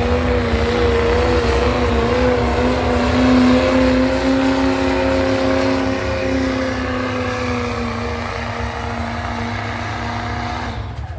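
Diesel pickup truck pulling the sled at full throttle. The engine drones steadily at high revs, rises a little at the start and then holds level. The engine note cuts off suddenly near the end.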